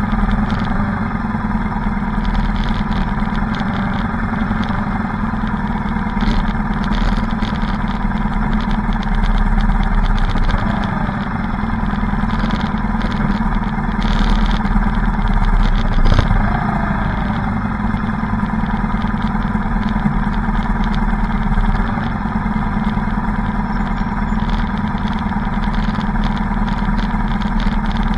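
Motorcycle engines running at low speed in a slow-moving column of motorcycles, heard from on board one of the bikes: a steady engine drone with a couple of brief revs about ten and sixteen seconds in.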